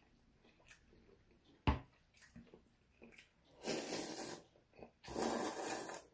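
A person slurping Korean ramyeon noodles in two long pulls, the first about three and a half seconds in and the second about a second later. Before them comes a single sharp click.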